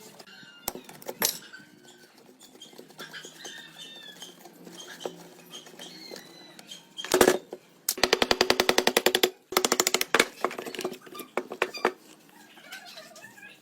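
Hand-tool work on metal: scattered clicks and knocks, then two runs of rapid, evenly spaced rattling strokes, each lasting a second or two, about eight seconds in.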